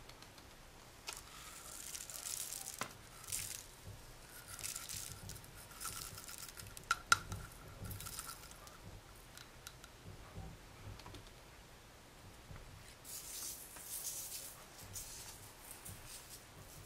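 Slime mixed with confetti, glitter and foam beads being pressed and squished by hand, crackling and rustling in bursts, with one sharp click about seven seconds in.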